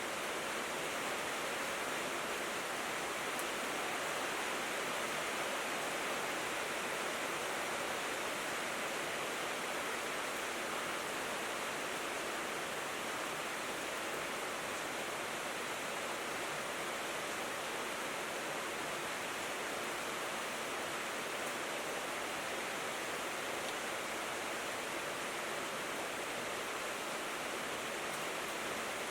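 Steady rain falling on a corrugated tin roof: an even, unbroken hiss with no single drops standing out.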